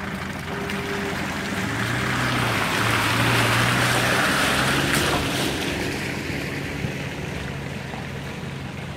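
Nissan Patrol 4x4 driving through a muddy, water-filled track past the camera: a low engine hum under a rush of splashing water that swells to its loudest about halfway through as it passes, then fades.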